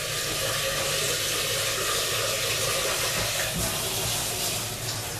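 Espresso machine running: a steady hiss of water and steam over the low hum of its pump.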